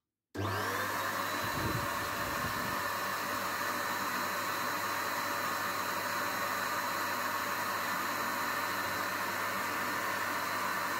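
Air compressor running, really loud: a steady hum and hiss that cuts in abruptly a moment in and holds steady. It mixes with the hiss of compressed air driving a small model oscillating steam engine.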